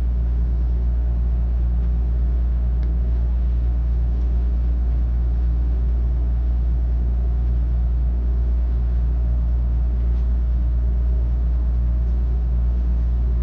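A steady low rumble of running machinery, even and unchanging throughout.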